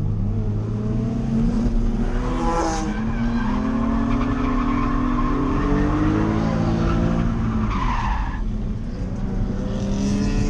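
Drift car's engine held at high revs, its pitch rising and falling as the throttle is worked through a drift, with tyres skidding on the track. Short tyre squeals come about a quarter of the way in and again late on.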